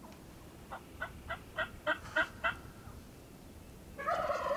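A series of seven evenly spaced turkey yelps that mostly grow louder. About four seconds in, a Merriam's wild turkey gobbler gobbles loudly in answer.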